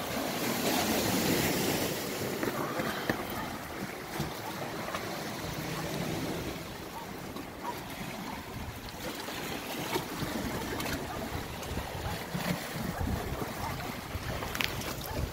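Sea waves washing against the shore rocks and surging into a rock crevice, louder in the first couple of seconds, with wind buffeting the microphone.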